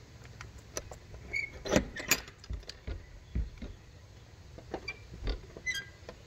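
Keys jingling and light metallic clinks, with a few soft knocks, as a padlocked shed door is about to be unlocked.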